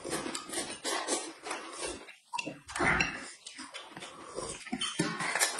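Someone eating noodles noisily, with irregular slurping and chewing noises.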